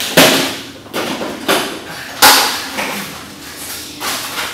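A string of about six sharp, noisy rustling knocks at uneven intervals as a box and its contents are handled and set down on the floor.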